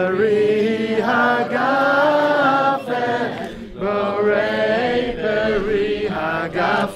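A group of voices singing a slow, drawn-out melody together, in long held phrases with brief breaks between them.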